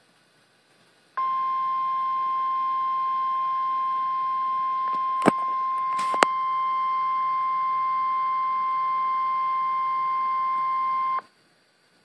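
NOAA Weather Radio 1050 Hz warning alarm tone sounding through a weather radio receiver's speaker: one steady beep that starts about a second in, holds for about ten seconds and cuts off, announcing an Emergency Alert System warning. Two sharp clicks are heard near the middle of the tone.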